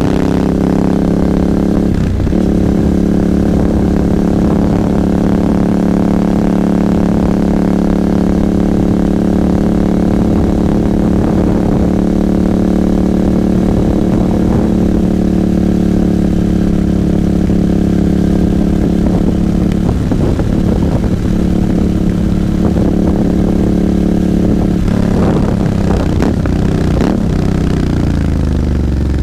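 Royal Enfield Interceptor 650's parallel-twin engine running at a steady cruising speed, its note holding an even pitch. Over the last few seconds the engine note wavers and falls as the bike slows.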